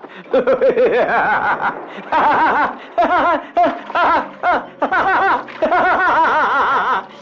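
A man cackling with laughter in repeated bursts, the pitch wavering rapidly up and down.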